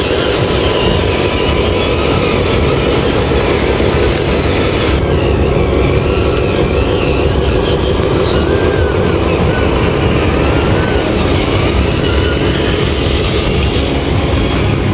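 Steady, unbroken engine-like running of a miniature RC model truck driving, with a slight change in tone about five seconds in.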